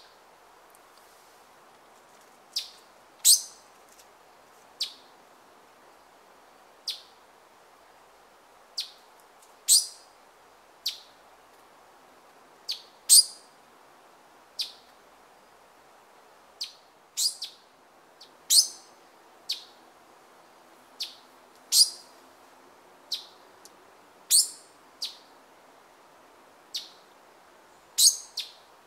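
Male black-cheeked gnateater calling: short, sharp, high-pitched notes repeated every second or two at an uneven pace, some in quick pairs.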